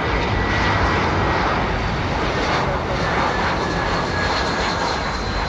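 Jet engines of a British Airways Airbus A319 on final approach, just before touchdown: a steady rushing jet noise with a faint high whine on top, easing slightly near the end.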